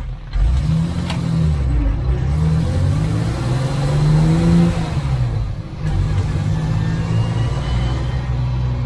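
Unimog truck engine heard from inside the cab while driving, its pitch rising as it pulls, dropping sharply about five seconds in, then running fairly steady.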